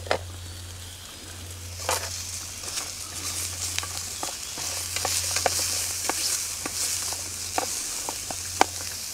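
Sliced red onion and bacon sizzling in a frying pan as a wooden spatula stirs them. Irregular clicks and scrapes come from the spatula against the pan, with one louder knock near the end.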